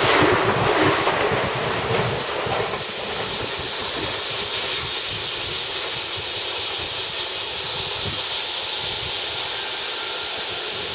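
JR West 225 and 223 series electric train running past close by, wheel and running noise loudest for the first couple of seconds. It then eases into a steady hiss as the train draws away.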